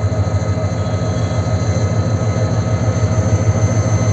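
Diesel locomotive running, with a low pulsing rumble and a steady high whine.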